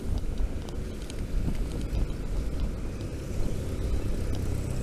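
Steady low wind and road rumble on the microphone while riding a Bee U1 lithium-battery electric scooter, which makes almost no motor sound of its own.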